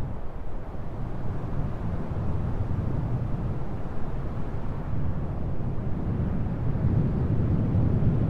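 Steady low rumble of outdoor street ambience, distant traffic noise with no distinct events.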